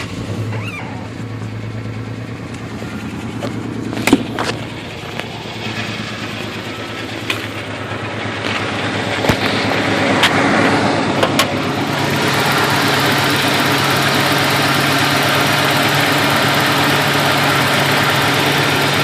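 Ford Ranger 2.9 V6 engine just after startup, idling roughly, with a few sharp pops. About twelve seconds in it settles into a louder, steadier running. The owner cannot say what causes the rough idle and power loss.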